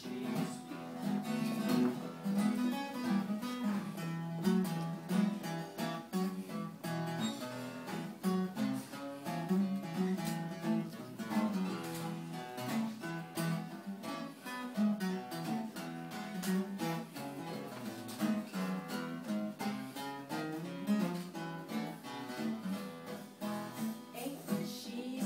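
Two acoustic guitars playing together in a steady instrumental passage, strummed rhythmically with moving note lines.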